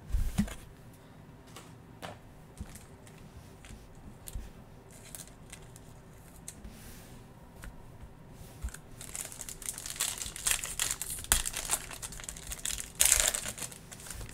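A foil trading-card pack wrapper (2021 Panini Mosaic NFL) crinkling as it is handled and torn open. The crinkling grows dense from about two-thirds of the way in and is loudest near the end. It follows a few seconds of light clicks and taps.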